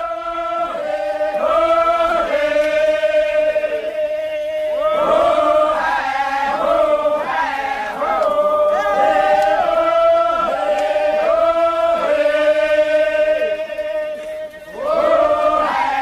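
Men chanting together for a ritual dance, many voices holding long notes on a steady pitch with sliding starts, breaking off briefly every few seconds, with a short pause near the end.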